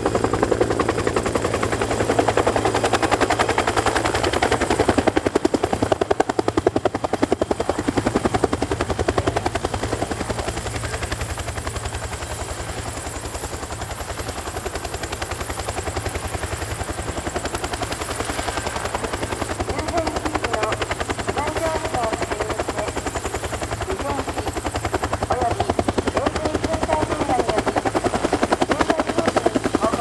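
UH-1J helicopter's two-bladed main rotor beating in a fast, steady rhythm over the high whine of its turbine engine, the aircraft flying low and then sitting on the ground with the rotor still turning.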